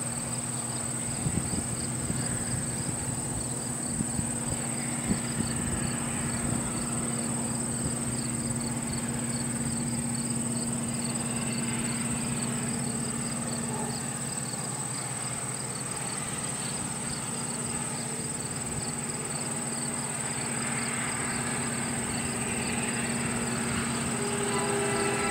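Insects chirping steadily, a high continuous shrill over a rapid pulsing chirp, over the low steady hum of approaching diesel locomotives. A locomotive horn begins to sound right at the very end.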